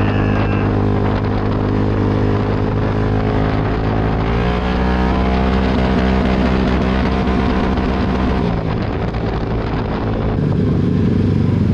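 2020 Honda Rancher 420 ATV's single-cylinder four-stroke engine running on the move, rising in pitch about four seconds in as it speeds up and dropping back again near the end.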